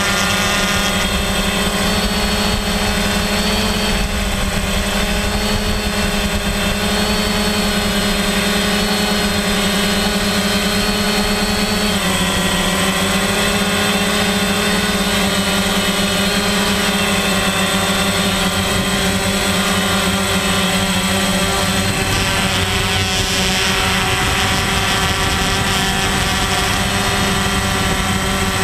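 DJI Phantom quadcopter's electric motors and propellers whirring steadily in flight, a steady buzzing hum whose pitch shifts slightly about twelve seconds in.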